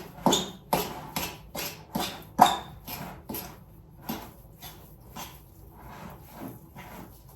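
Utensil stirring thick cottage-cheese dough in a bowl, in repeated strokes about two a second, softer in the second half.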